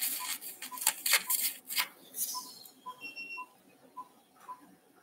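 Anaesthesia monitor beeping steadily with the pulse, about two short beeps a second. Loud irregular bursts of hissing noise cover the first two seconds or so.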